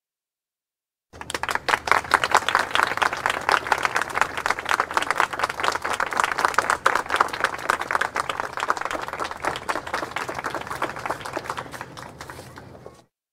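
Large crowd applauding: dense, rapid clapping from many hands. It starts abruptly about a second in, eases slightly near the end and cuts off sharply.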